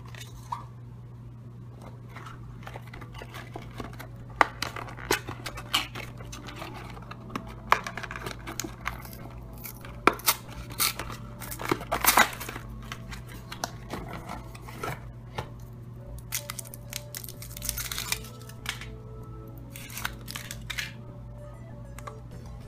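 Cardboard Kinder Surprise egg box being torn open and an egg unwrapped from its foil: irregular tearing, crinkling and tapping handling noises, with a steady low hum underneath.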